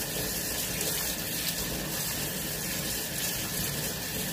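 Kitchen tap running steadily into a sink while hands are washed under it.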